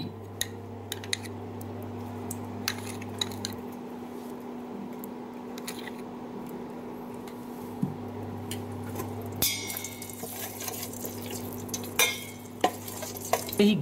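Perforated steel skimmer clinking and scraping against a steel pan as lumps of ghee are pushed around to melt, with scattered light clicks and a couple of louder scrapes near the end. A steady low hum runs underneath.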